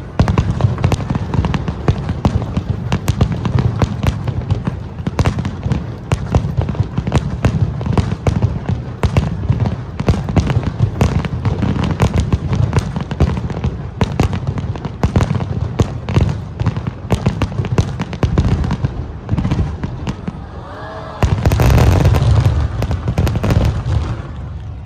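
Aerial fireworks display: a rapid, continuous string of bangs and crackles from bursting shells over a low rumble. It builds to a dense, loudest barrage about three-quarters of the way through, then dies down near the end.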